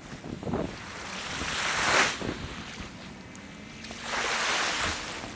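Small sea waves washing and lapping in shallow water at the shoreline, the surf swelling loudest about two seconds in and again around four seconds in.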